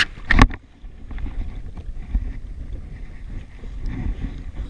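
A Yamaha WaveRunner jet ski idling, a steady low rumble under wind buffeting the microphone. Two loud knocks in the first half-second as the camera is jostled.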